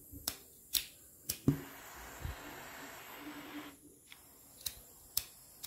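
Butane gas soldering iron being relit with a pocket lighter: sharp clicks of the lighter being struck, four in the first second and a half, then a steady hiss of gas for about two seconds, then two more clicks near the end.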